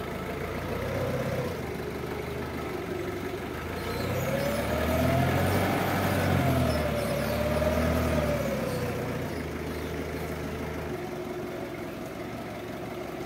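Linde forklift's engine running, revving up from about four seconds in, easing back and rising again around eight seconds, then settling to a steady lower run, as the forklift picks up a pallet of bottled water and carries it.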